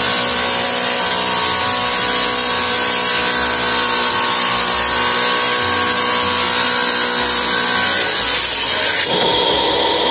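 Clipper masonry saw's blade cutting through a cement tile, a loud steady grinding over the motor's hum. About nine seconds in the high hiss drops away abruptly while the saw's motor keeps running.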